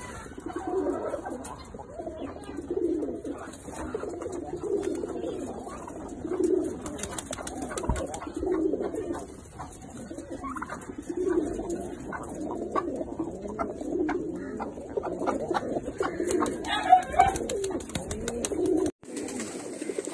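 Mookee pigeons cooing over and over, a low coo about every one to two seconds from more than one bird, with scattered light clicks.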